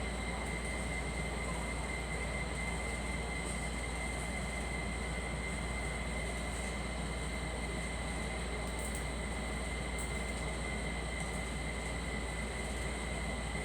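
Steady machine-like hum and hiss with a constant high whine, unchanging throughout, and no coughs.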